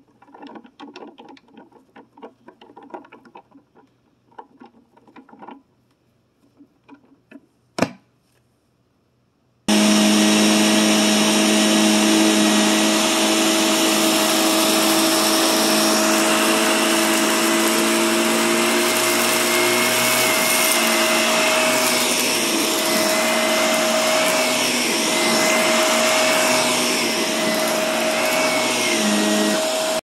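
Faint pattering and rustling with one sharp click about eight seconds in, then an upright vacuum cleaner switches on abruptly about ten seconds in and runs steadily, a motor hum with a high whine, as it is pushed over carpet.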